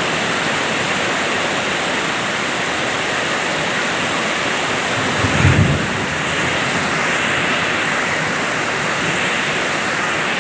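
Steady heavy rain falling, with a brief low rumble about five seconds in.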